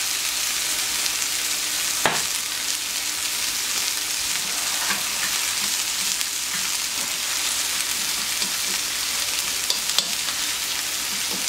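Beef short ribs and chuck sizzling steadily on a hot plancha over a cooking sheet, being seared to brown and crisp. A single sharp click about two seconds in and a few light clicks near the end.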